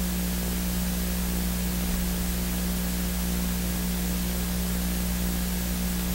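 Steady hiss with a low electrical hum underneath, the recording's own background noise with nothing else happening.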